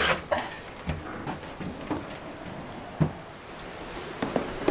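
A plastic rabbit litter tray full of hay and used bedding being handled and emptied: rustling hay with scattered, irregular knocks of the tray.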